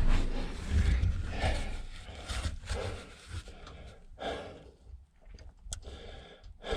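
A person breathing hard in short gasps and sighs while squeezing through a tight cave crawlway, with scraping and rubbing against the rock and gear. The scraping is heaviest at the start, and a single sharp click comes near the end.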